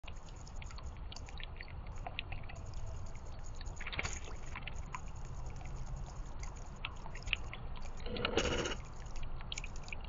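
Small birdbath fountain trickling and splashing, with many little drips over a steady low rumble. A brief, louder rustling rush comes about eight seconds in.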